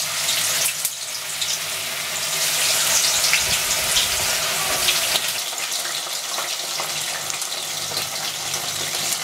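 Marinated chicken pieces sizzling as they deep-fry in hot oil: a steady hiss with scattered crackles and pops.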